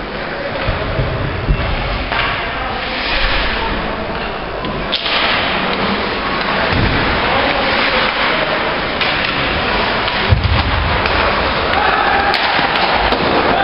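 Ice hockey game noise in an indoor rink: a steady wash of skating and arena noise with a sharp knock about five seconds in and several low thumps.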